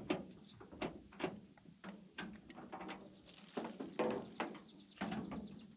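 Irregular knocks and clatter of tools and metal parts being handled, with a fast, even run of high-pitched clicks in the second half.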